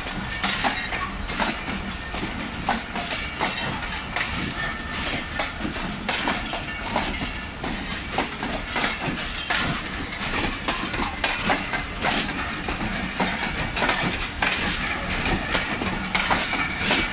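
Passenger coaches of a departing Pakistan Railways express rolling past, their wheels clattering irregularly over the rail joints with a steady rumble underneath.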